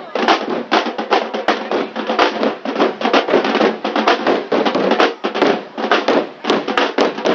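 A troupe of drummers beating barrel drums with sticks together in a fast, dense rhythm of many overlapping strokes.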